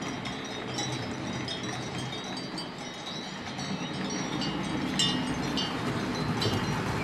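Metal wheels of HO-scale narrow-gauge model freight wagons squealing and tinkling on curved track: many short, high-pitched squeaks over a steady rush of noise.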